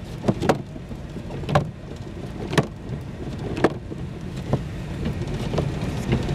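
Windshield wipers knocking at the end of each stroke about once a second, over the steady rumble of the car and its tyres on the snowy road, heard inside the cabin.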